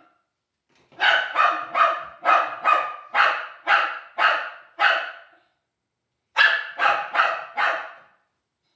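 Dog barking from inside a plastic travel crate: a quick run of about a dozen sharp, high barks, a pause of about a second, then about five more.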